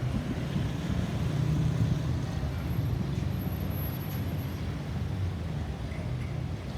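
Steady low rumble of road traffic and vehicle engines, with no siren sounding.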